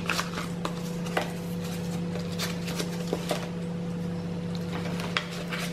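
Paper rustling with scattered light taps and clicks as the thick pages, envelope and note card of a handmade junk journal are handled and turned. A steady low hum runs underneath.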